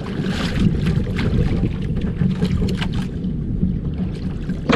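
Wind buffeting the microphone on a small fishing boat at sea: a steady low rumble with scattered sharp clicks and knocks.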